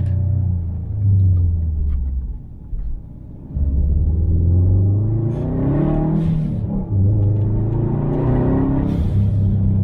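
Subaru WRX STi's turbocharged 2.5-litre EJ257 boxer four, with a muffler-deleted exhaust, pulling hard. The engine goes quiet for about a second near the three-second mark as the driver lifts off, then revs up again, with a short break near seven seconds for a gear change before it climbs once more.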